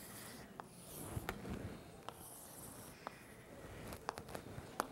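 Faint scraping of chalk on a chalkboard as straight lines are drawn, with several sharp ticks as the chalk strikes and lifts off the board.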